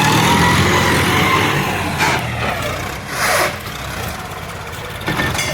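Tractor engine running with a steady rumble and a rising whine over the first second or so. Brief hissing bursts come about two, three and five seconds in.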